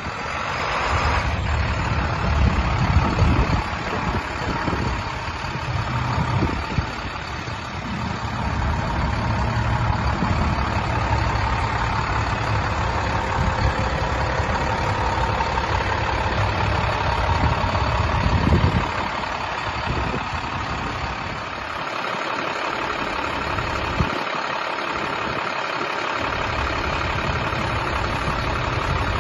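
Diesel engine of a 2009 International 7400 dump truck running steadily, mostly at idle.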